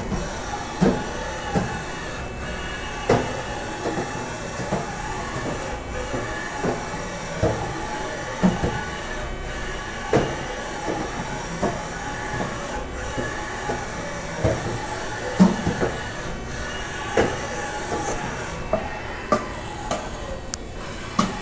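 Haas VF-4SS vertical machining center running: a steady machine tone overlaid by irregular sharp clunks, about one a second.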